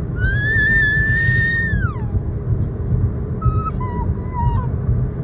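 Samoyed puppy whining: one long high whine that rises, holds and then falls away, followed about a second and a half later by two shorter, lower whines. Steady road rumble of the moving car lies beneath.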